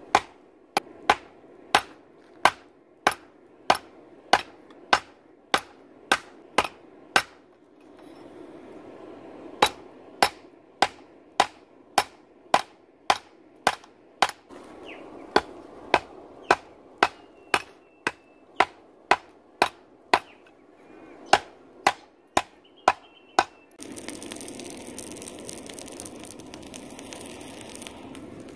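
Hand hammer striking steel flat bar on a small improvised anvil set in a wooden stump: a steady run of sharp metal-on-metal blows, about one and a half a second, with a pause of about two seconds partway through, stopping a few seconds before the end.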